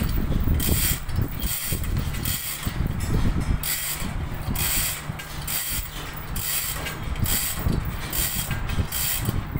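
Manual chain block (chain hoist) being worked by hand: its chain rattles through the block in even pulls about twice a second.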